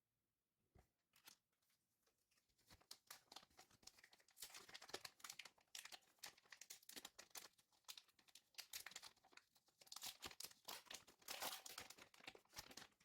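Plastic wrapper of a Naruto Kayou trading-card booster pack being torn open and crinkled, a run of crackling rustles and tears that starts about a second in. The packs carry a hanging tab that makes them hard to tear open.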